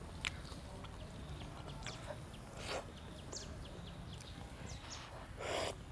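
Quiet eating sounds: a metal spoon clicking against a ceramic soup bowl a few times, and two short slurps of soup, the longer one near the end.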